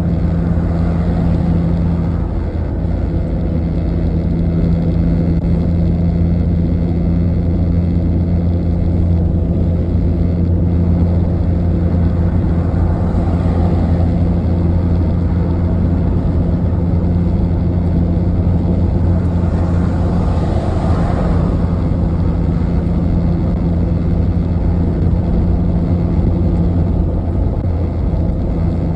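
Steady engine and tyre noise heard from inside a vehicle's cabin at motorway speed, with a constant low drone. The noise swells briefly about twenty seconds in as traffic is passed.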